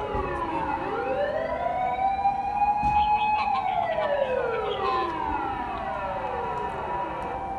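Police car sirens wailing: a slow rise in pitch, a brief hold, then a long fall, with a second siren's falling wail overlapping near the end.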